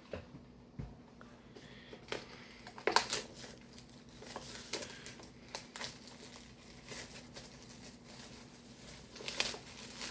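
Plastic wrapping on a DVD box set crinkling and tearing as it is opened, with scattered clicks and taps from handling the case; the loudest snaps come about three seconds in.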